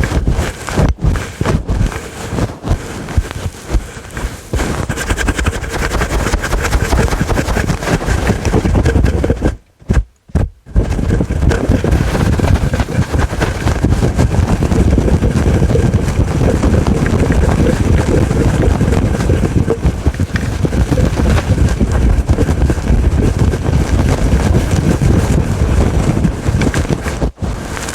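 Aggressive scratching on a fluffy, furry microphone windscreen: a loud, dense, close-up rustle. It breaks off for about a second around ten seconds in, then runs on unbroken.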